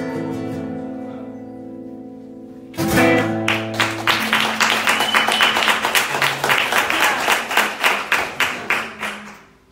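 An acoustic guitar and an electric guitar let a final chord ring and fade. A last strummed chord comes about three seconds in. Then comes clapping, which dies away near the end.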